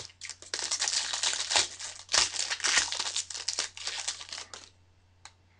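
Foil wrapper of a Bowman Chrome baseball card pack crinkling as it is torn open by hand and peeled back from the cards, stopping near the end.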